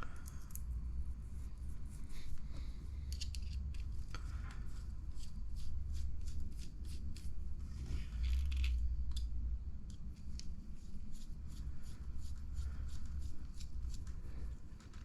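Small plastic and metal parts of an RC buggy being handled and fitted by hand: irregular light clicks and ticks over a low handling rumble.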